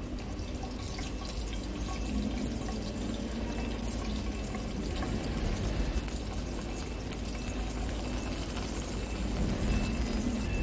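Chopped seasonings (hot pepper, tomato, onion) frying in hot oil in a frying pan over a wood fire: a steady sizzle that picks up about half a second in.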